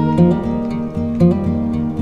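Background music on plucked acoustic guitar, individual notes picked a few times a second over ringing lower notes.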